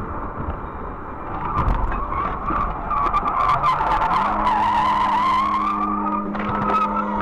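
A car skidding out of control, its tyres squealing in a wavering screech for a few seconds, with several sharp knocks and rattles. A steady low hum sets in about four seconds in and holds.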